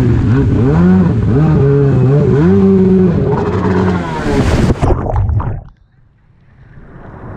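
Stand-up jet ski engine running hard over rushing water, its pitch climbing and dropping in steps with the throttle. About five seconds in comes a burst of splashing, and the sound falls away almost to nothing as the ski wipes out.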